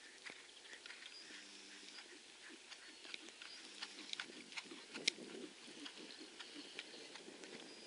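A horse trotting on grass: faint, irregular clicks and patter, with one sharper click about five seconds in.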